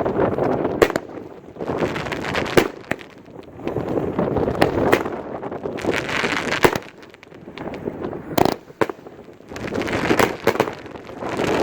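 A 25-shot consumer firework cake firing: sharp reports, each followed by a swell of crackling, roughly every two seconds, with a short lull about two-thirds of the way through.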